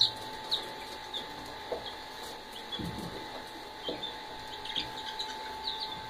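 Small caged parrots chirping: short, high chirps scattered through, over a faint steady whine.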